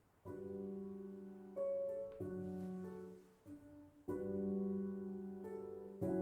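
Soft piano music: sustained chords that change every second or two.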